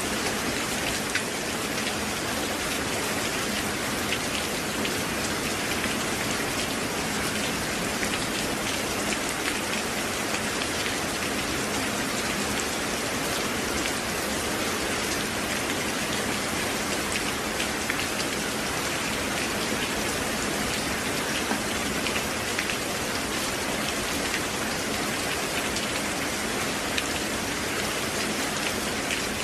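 Steady rain falling on a surface: a dense, even hiss with scattered sharper drop ticks, holding at one level throughout.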